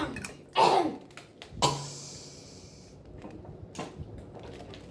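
A person's voice making two short throaty sounds, about half a second and a second and a half in, with a breathy hiss after the second. Then quiet room tone with a few faint clicks.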